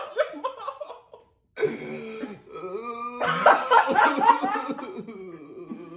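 A person coughing and laughing in short vocal bursts, with a brief pause about a second and a half in.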